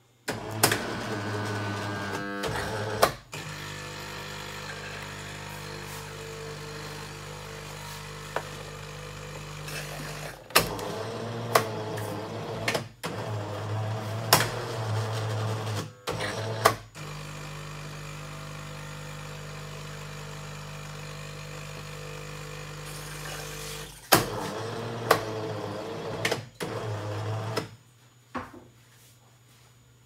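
Jura Impressa C5 automatic coffee machine running its cleaning cycle: the pump hums steadily in long stretches, broken by sharp clicks and knocks from the machine. It stops near the end.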